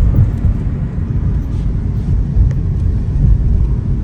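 Road and engine noise of a moving car heard from inside the cabin: a steady low rumble.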